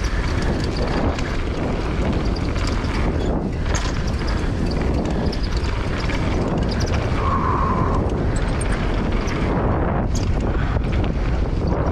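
Mountain bike descending a dirt trail at speed: steady rush of wind on the rider-mounted camera's microphone, with tyre noise on the dirt and the bike rattling and knocking over bumps. A short squeal about two-thirds through.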